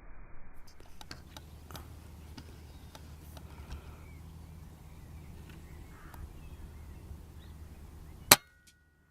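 Air Arms S400 .177 air rifle firing a single shot: one sharp crack near the end, with a brief ringing tone after it. Faint clicks and rustles come before the shot.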